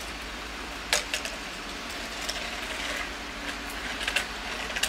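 Steady rain falling on a wet concrete yard, with a few scattered sharp ticks and taps, the loudest about a second in.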